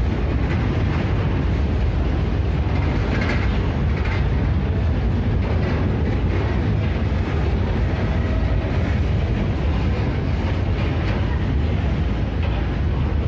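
Indian Railways freight train of open box wagons rolling past a station platform: a steady rumble of wheels on the rails with a continuous fast clatter of wheel clicks.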